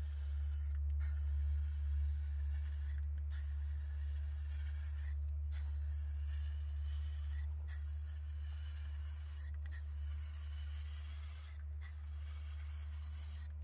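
Steady low hum with a faint hiss over it, the hiss dropping out briefly about every two seconds.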